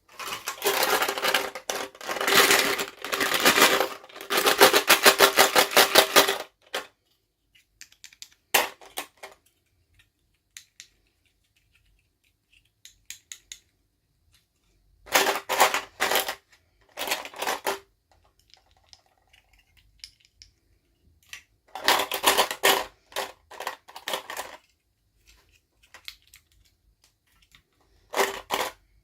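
Small plastic toy packaging being handled and opened, in bursts of rapid crackling clicks: a long run at the start, then several shorter bursts with quiet pauses between.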